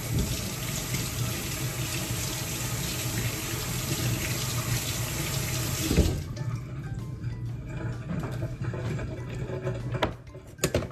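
Kitchen tap running into the sink as skinless chicken thighs are rinsed under it. The water cuts off about six seconds in with a knock, followed by quieter handling and a couple of clicks near the end.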